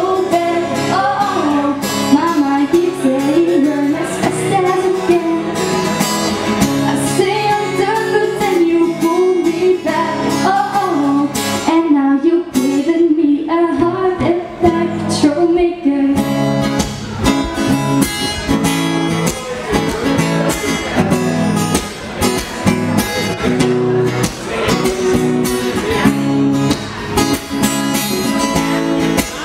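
A woman sings live over her own strummed acoustic guitar. In the second half the voice drops out and the guitar keeps strumming alone.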